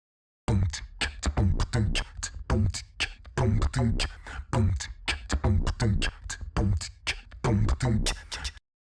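A punchy percussive beat of heavy low kicks, about two a second, with sharp snare-like hits between them, stopping suddenly near the end.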